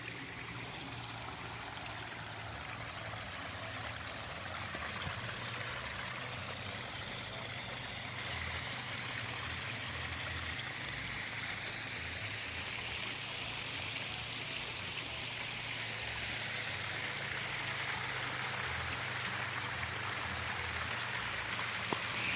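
Water from a spring-fed irrigation ditch rushing and splashing down a rocky channel: a steady rush that grows gradually louder.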